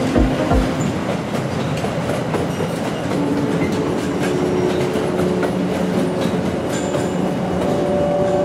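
Double-deck car-carrier freight wagons rolling past close by, wheels clattering over the rail joints with a steady rumble and hiss; the end of the train passes near the end.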